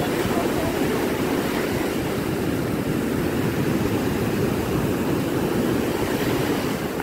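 Heavy surf breaking close to shore and washing up the beach: a steady rushing noise of waves with no let-up.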